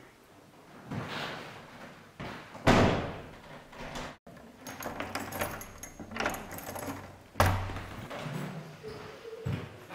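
Wooden interior door being handled and banged shut: two loud thuds, about three seconds in and again about five seconds later, with quieter knocks and rustling between.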